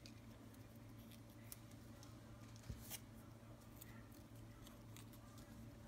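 Near silence with a few faint, scattered clicks and paper rustles of a sticker being peeled from its backing and handled, over a faint steady low hum.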